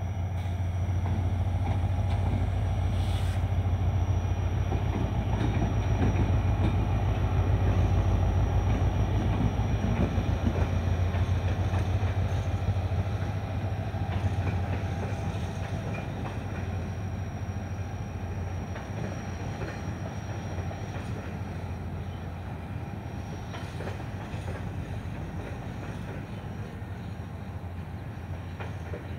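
Pakistan Railways HGMU-30 diesel-electric locomotive running past with a steady deep engine hum, loudest a few seconds in and easing off as it goes by, followed by a string of empty flatbed wagons rolling on the rails.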